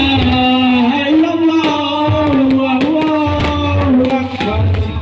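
Music playing loudly through a "sound horeg" rig of huge stacked loudspeakers: a held, sliding melody line over pulses of heavy bass and sharp percussion hits.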